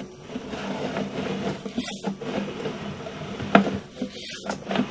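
Sewer inspection camera's push cable being fed through the pipe, a steady scraping rattle with a few sharp clicks.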